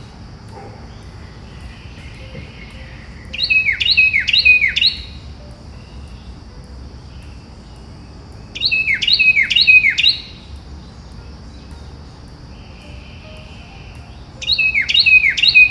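A bird singing three phrases about five seconds apart. Each is a quick run of about five sharply falling notes. A faint steady hiss lies underneath.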